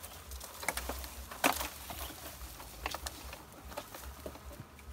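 Light rustling and a few scattered short clicks as a branch carrying a cut honeycomb is handled, over a low steady rumble of wind on the microphone.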